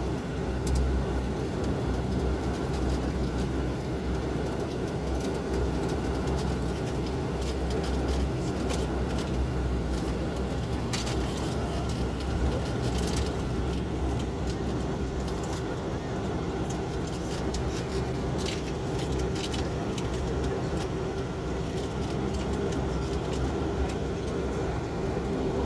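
Steady cabin noise of an airliner taxiing after landing: an even engine hum over a strong low drone, with a few faint clicks.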